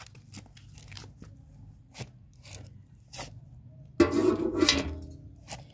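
Gravel stones clicking and crunching, scattered small ticks and knocks. About four seconds in comes a sudden, much louder grinding crunch that lasts about a second and fades.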